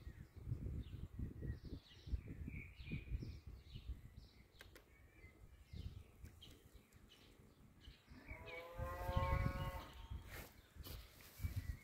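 One long, steady animal call lasting about a second and a half, near the end, over irregular low rumbling noise.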